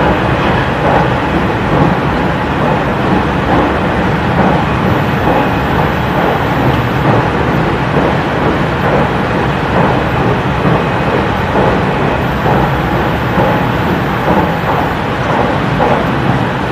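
JR Central 313-series electric train running at speed, heard from inside the car: a loud, steady rumble of wheels on rail as it crosses a steel truss river bridge, with the cabin air conditioning blowing.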